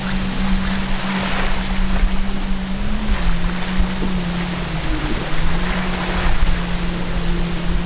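Twin Mercury 450R supercharged V8 outboards on an MTI 34X RP catamaran running at speed, a steady engine drone that dips briefly in pitch twice. Surf and gusting wind on the microphone run underneath.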